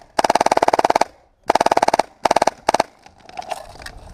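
Airsoft electric gun firing on full auto: four bursts of rapid, evenly spaced shots, about twenty a second, the first lasting nearly a second and the last two short.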